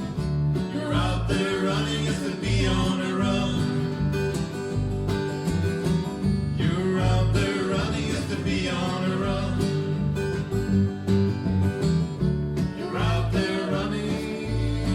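Live acoustic country band playing an instrumental passage: acoustic guitar with a bass line and a lead melody line over it.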